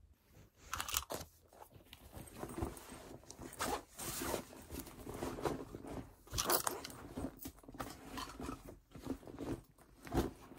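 Handling and rustling of a large black fabric bag, with uneven crinkles, scuffs and soft knocks.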